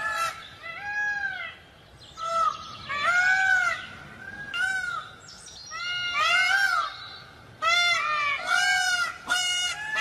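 Peacock calling over and over: a rapid string of loud, nasal, honking cries, each rising and then falling in pitch.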